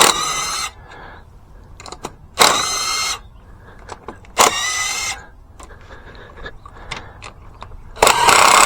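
Cordless power driver on an 8 mm socket whirring in four short bursts, each under a second long, as it runs small bolts on the dirt bike; the last burst is the loudest.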